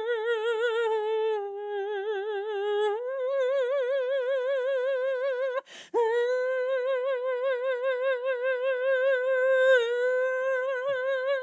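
A woman's voice singing long wordless held notes with a wide, operatic vibrato. The pitch drops a step about a second and a half in and rises about three seconds in, and there is a brief break for breath near the middle.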